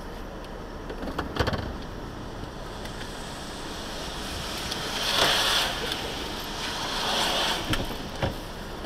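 Steady background noise inside a car stopped on a wet street, with tyres on wet pavement swelling twice as vehicles pass close by, about five and seven seconds in.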